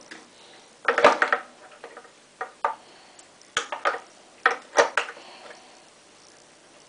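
Hard plastic clattering and knocking as the washing machine's detergent drawer and its parts are handled: a cluster of knocks about a second in, then several single knocks, then quiet for the last couple of seconds.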